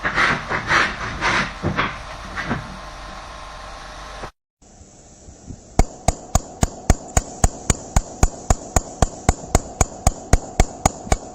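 Irregular scraping, hissing bursts, then after a brief silent cut, a steady rapid series of sharp knocks, about three a second.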